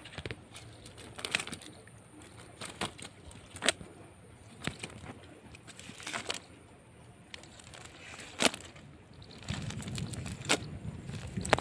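Scattered sharp clicks and rustles from a cast net being handled on dirt ground with small fish in its mesh. A low rumbling noise comes in near the end.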